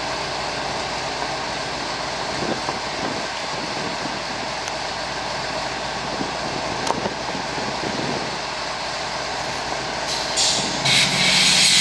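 GE diesel locomotive idling steadily, with one sharp metallic click about seven seconds in. Near the end a loud hiss of compressed air starts in bursts: air let into the brake line as the train line is hooked up.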